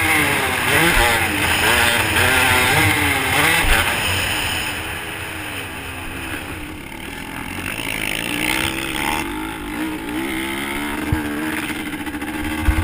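Dirt bike engine revving up and down as it is ridden around a motocross track, picked up by a camera on the bike, with wind rushing over the microphone. The revs ease off about five seconds in, then build again toward the end.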